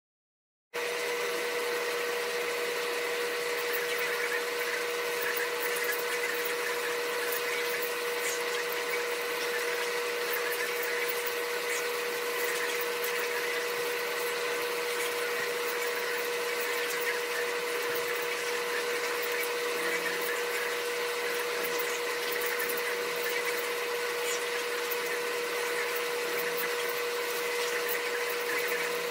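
Steady machine hum from a running motor, with one constant mid-pitched tone. It starts suddenly just under a second in.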